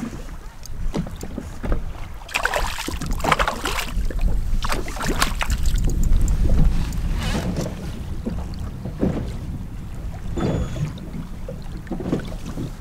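Wind buffeting the microphone on a small boat at sea, with a steady low rumble. A run of short knocks comes about two to six seconds in, and a few more near the end.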